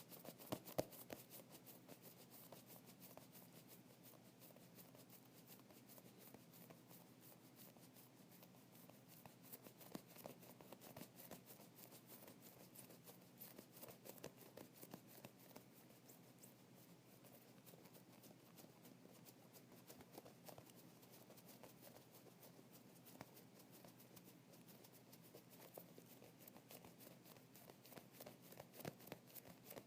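Foam stress ball squeezed over and over: faint, dense soft crackling and clicking of the compressing foam, with a few louder clicks near the start.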